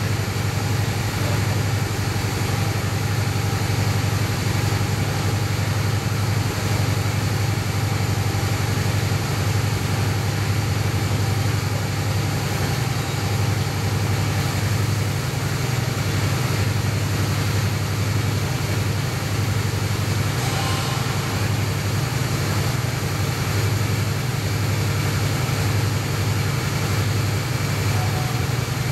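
Honda Shadow 600's V-twin engine idling steadily.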